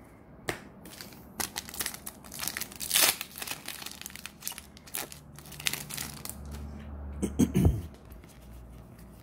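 Foil trading-card booster pack being torn open and crinkled by hand: a busy run of sharp crackles and rustles, loudest about three seconds in and again near the end as the cards are pulled out.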